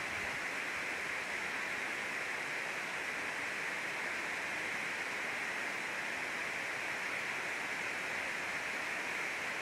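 Water pouring over a dam spillway: a steady, unbroken rushing hiss.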